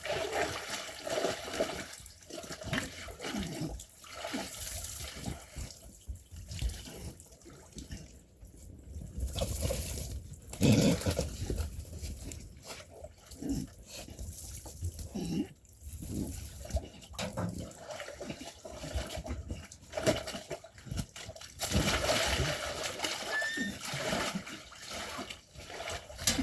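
Sheep bleating now and then over a continuous rough, watery-sounding noise.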